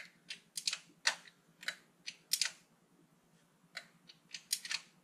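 Ratchet wrench clicking in short, irregular runs of sharp clicks as the rocker-cover bolts are tightened, with a pause of about a second midway.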